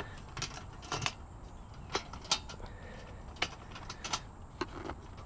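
Scattered light clicks and knocks, about eight in all, as an ash vacuum is handled and looked over.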